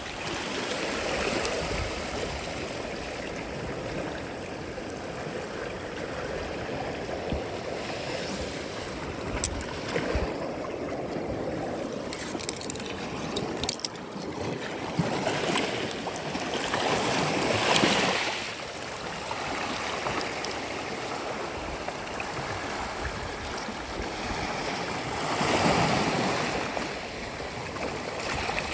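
Sea waves washing onto a sandy beach: a steady wash of surf that swells into louder breaking waves twice, about two-thirds of the way in and near the end.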